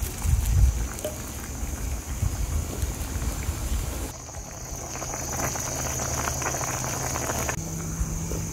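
Red stew boiling in an electric hot pot, a steady bubbling with fine crackle. The sound changes abruptly about four seconds in and again near the end.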